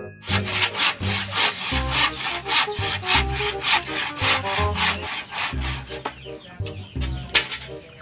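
Hand saw cutting through a wooden pole in rapid, even back-and-forth strokes, stopping about six seconds in, with one more sharp stroke near the end.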